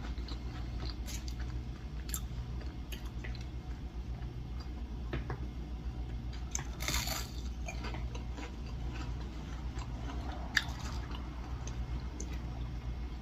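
Close-up chewing of crispy yam tempura: irregular crunches and wet mouth clicks, with a louder crunch about seven seconds in and a sharp click near eleven seconds.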